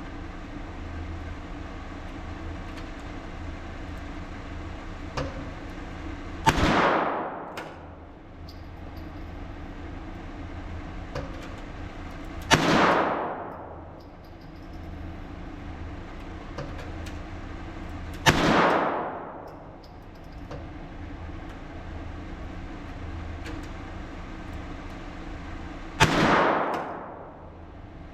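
Four single .22 LR shots of Norma Match ammunition, fired several seconds apart, each a sharp crack followed by about a second of fading echo. A steady low hum runs underneath.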